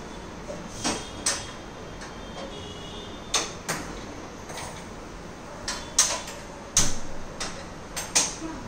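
Footsteps in flip-flops slapping on a hard marble floor: about ten sharp slaps at an uneven pace, often in quick pairs. A heavier knock comes about two thirds of the way through.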